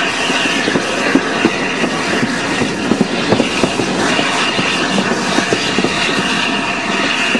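Passenger carriages running on the rails, heard from an open carriage window: a steady rumble of wheels on track with many irregular clicks and knocks, and a thin high squeal from the wheels as the train takes a curve.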